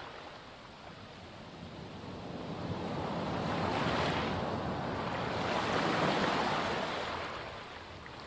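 Sea waves washing onto a beach: a steady rush of surf that builds to two swells in the middle and then falls away again.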